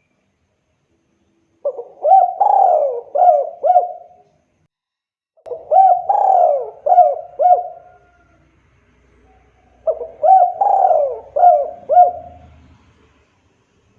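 Spotted dove (tekukur) cooing: three song phrases of several rising-and-falling coos each, about four seconds apart.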